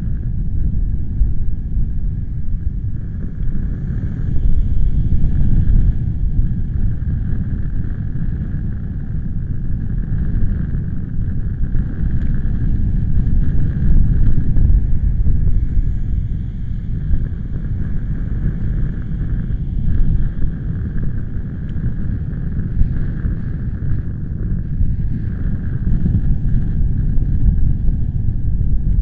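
Wind buffeting the microphone: a loud, continuous low rumble that swells and eases every few seconds.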